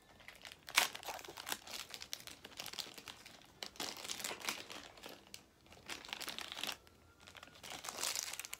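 Pink surprise-packet wrapper crinkling in the hands as it is worked open, in irregular crackles; the loudest comes about a second in and there is a brief lull near the seven-second mark.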